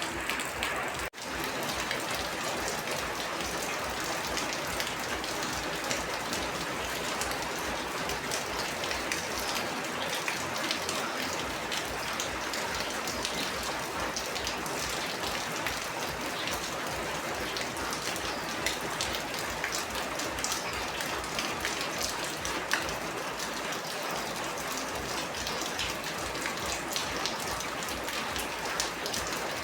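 Steady rain falling on a surface, a dense, even patter of many drop strikes, with a brief dropout about a second in.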